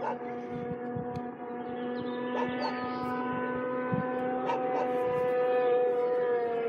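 Distant snowmobile engines held at high revs as they skip across open water, a steady pitched drone. The pitch creeps up and sags slightly in the second half, and a lower drone drops out about five seconds in.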